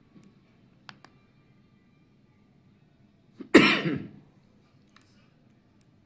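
A single loud cough about halfway through. A few faint clicks from the keyboard's control knob come before and after it as the screen menu is operated.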